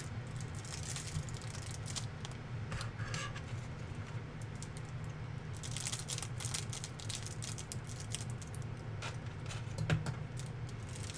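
Clear plastic wrap around a stack of trading cards crinkling and crackling in irregular bursts as the pack is handled, over a steady low hum.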